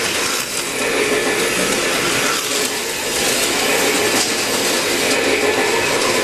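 HO-scale slot cars running on the track: a loud, steady whir of small electric motors.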